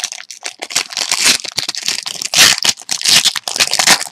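Wrapper of a trading card pack being torn open and crinkled by hand, a dense irregular crackling and rustling that stops abruptly at the end.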